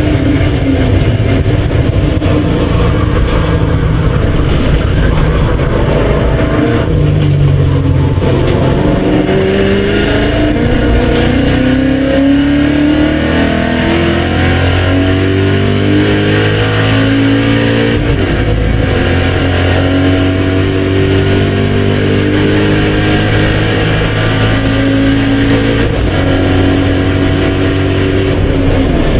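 BMW M5 E39's 4.9-litre V8 pulling hard under full throttle on track, its pitch climbing steadily through each gear. It drops back at an upshift about a quarter of the way in and again about two-thirds in.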